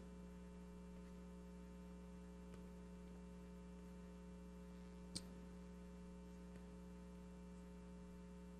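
Near silence: a steady electrical hum in the recording, with one short click about five seconds in.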